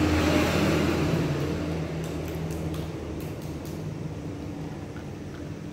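A low, steady motor hum that fades away over the first few seconds, with a few faint clicks later on.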